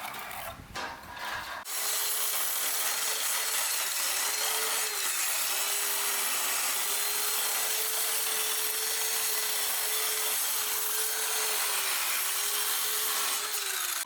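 An electric sander running on wood: a steady abrasive hiss with a humming motor tone that dips briefly a few times. It starts about two seconds in, after a short stretch of quieter handling noise.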